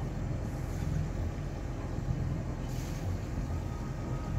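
A yacht's inboard engine running steadily under way: a low, even drone, with water washing past the hull.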